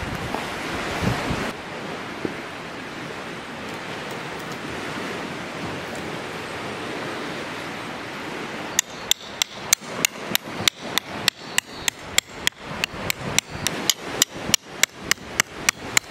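Rapid, evenly spaced hammer strikes, about three a second, each a sharp ringing knock, starting about nine seconds in. Before them there is only steady wind noise.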